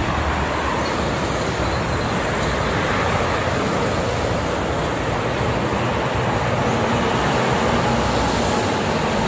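Steady noise of dense multi-lane highway traffic, mostly heavy freight trucks with buses and cars passing at speed: tyre noise and engine drone blended into a continuous wash.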